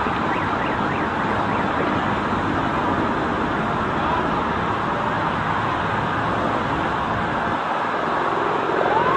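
Emergency vehicle sirens wailing over steady city traffic noise, with one siren gliding up in pitch near the end.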